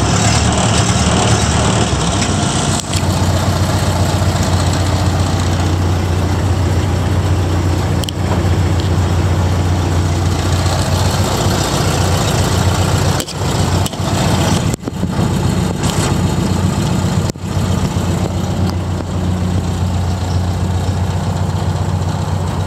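1929 Ford Model A's four-cylinder flathead engine idling steadily after a cold start.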